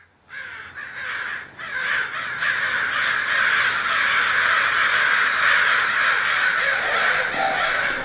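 A dense chorus of many crows cawing at once, overlapping calls that start almost immediately and build in loudness over the first few seconds before holding steady.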